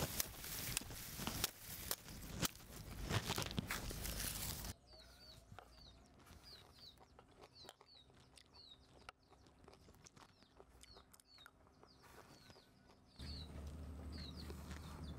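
Small birds chirping over and over, short high falling chirps, with light clicks of handling and utensils. For the first five seconds loud rustling and knocks cover them, and after about thirteen seconds a low hum comes in.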